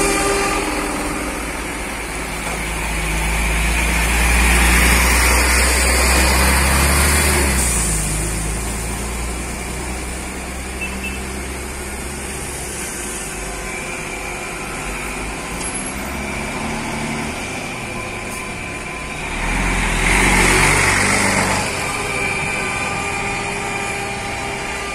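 Buses and coaches driving slowly past in a line, their engines running with a steady drone. It swells twice as a bus passes close, the first a few seconds in and the second about twenty seconds in.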